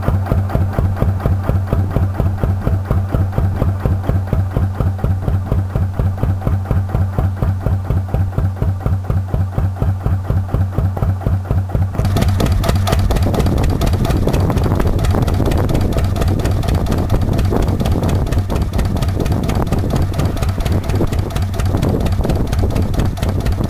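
Tangye VCDF1 single-cylinder stationary diesel engine running steadily with an even, regular beat. About halfway through, the sound switches abruptly to a denser, brighter running noise as the engine is heard close up.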